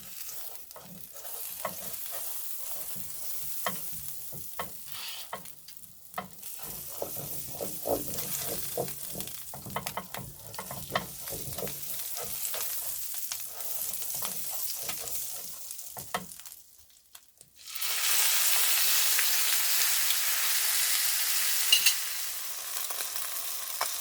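Food frying in a pan, sizzling with many sharp crackles and pops. About two thirds of the way in it breaks off briefly, then comes back as a louder, steadier sizzle that eases near the end.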